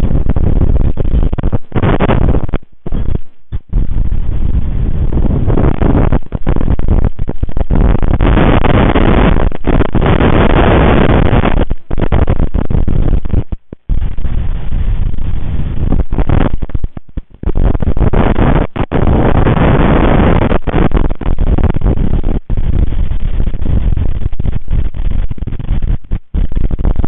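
Strong wind buffeting the nest camera's microphone: a loud, rough rush that surges in gusts, cutting out abruptly for a moment several times.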